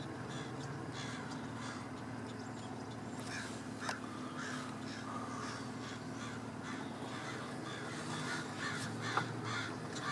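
A group of crows calling, many short caws one after another, more of them from about three seconds in, over a steady low hum.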